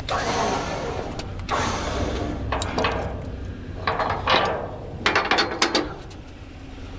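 Mechanical rattling and ratcheting clicks, in several short bursts with a quieter gap near the end.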